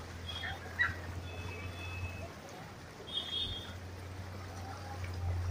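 Outdoor street ambience: a low steady rumble with faint distant voices and a few short, high chirps, near the start, around a second in and again about three seconds in.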